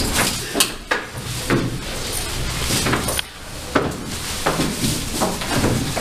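Stage furniture being shifted during a set change: a string of irregular knocks and scrapes of chairs and boxes on the stage floor.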